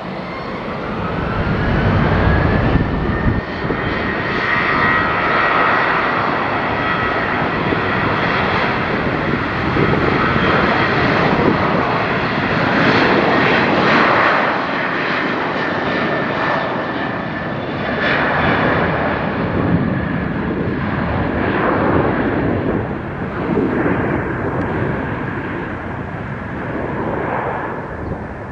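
Jet airliner's engines running at high power: a whine rises in pitch over the first few seconds and then holds steady above a loud roar.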